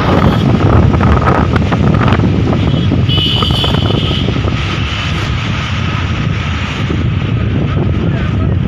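Strong gusting wind buffeting the microphone with a loud, steady low rumble that eases a little around the middle.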